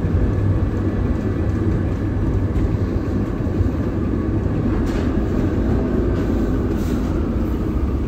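VBZ Be 4/6 'Mirage' tram no. 1675 running along its rails: a steady rumble of wheels and traction gear, with a few faint clicks midway through.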